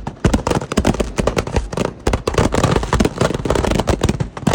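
Fireworks going off in a dense, rapid barrage of sharp bangs and crackles, loud and with no break.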